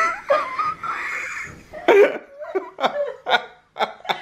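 A person laughing: a long wavering laugh, then a string of short bursts of laughter.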